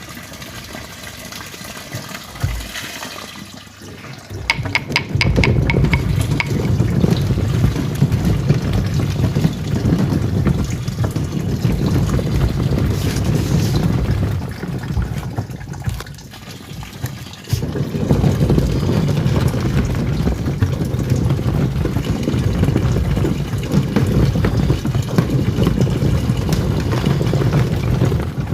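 Twin-tub washing machine's wash tub churning foamy water: the motor and pulsator start about four seconds in after a quick run of clicks, run steadily, stop for about three seconds in the middle, then start again as the wash cycle changes direction.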